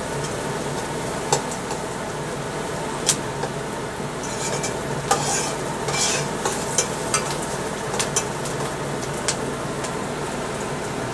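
Diced onions sizzling as they fry in oil in a pot, stirred with a metal spoon that scrapes and clicks against the pot at irregular moments.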